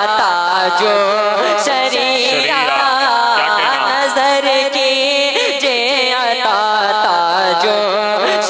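A young male voice singing a naat solo into a microphone, holding long ornamented phrases that glide up and down in pitch.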